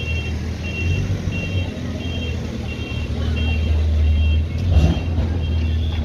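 Heavy-machine diesel engine running steadily, with a high-pitched reversing alarm beeping about once every two-thirds of a second. A short knock about five seconds in.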